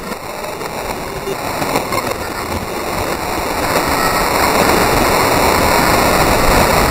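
Porsche rear window of tempered glass shattering, played in reverse: a hissing, crackling wash of falling glass fragments that swells steadily louder.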